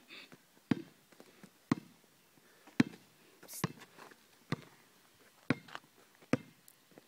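Basketball being dribbled on an asphalt court: about seven sharp bounces, roughly one a second, each with a short ringing thud.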